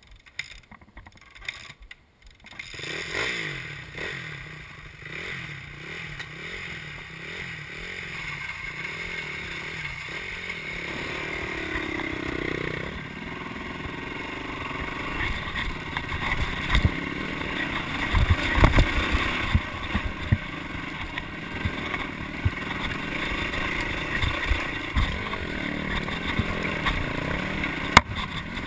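Yamaha dirt bike engine revving up and down while riding a rough forest trail, with knocks and rattles from the bumps. The first couple of seconds are much quieter, with a few clicks, before the engine comes in loud.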